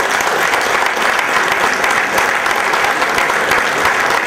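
An audience applauding steadily: many hands clapping at once.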